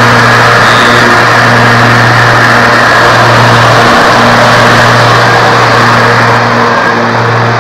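Ryobi RY48111 100 Ah electric riding mower with its cutting blades switched on and driving forward: a loud, steady hum and the rush of air the spinning blades generate, with no engine sound.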